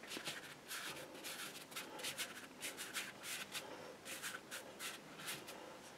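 Watercolour paintbrush brushing and scrubbing on paper, a faint run of short, irregular strokes.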